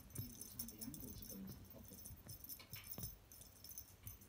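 Light, quiet jingling and rattling of a small cat toy as it is jerked about on a string across a fabric sofa cushion.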